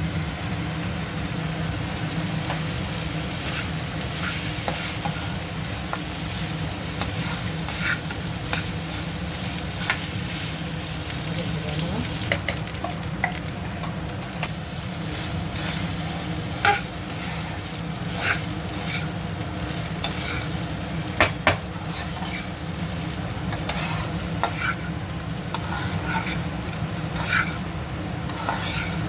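Ground mint paste with onions frying and sizzling steadily in oil in a pan, with a spatula stirring it and knocking sharply against the pan now and then.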